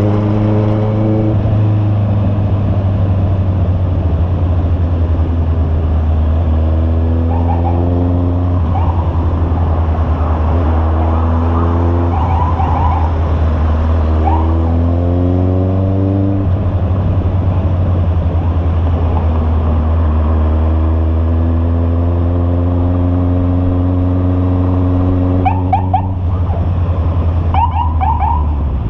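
Honda CB650R inline-four engine breathing through an aftermarket muffler while the bike is ridden: a steady engine note with several pulls that rise in pitch as it accelerates.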